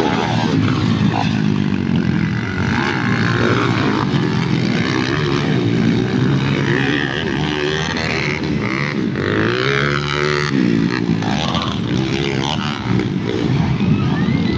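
Several underbone motorcycles' small engines running hard at high revs, their overlapping notes rising and falling as they accelerate and change gear, with one engine winding up and down sharply about two-thirds of the way through.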